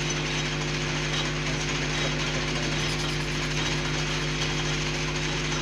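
Lathe running steadily while turning a shaft, a constant machine hum under an even cutting noise.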